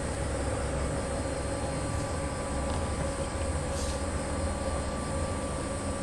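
Male jerabang cricket chirping steadily, high and shrill, over a steady low rumble.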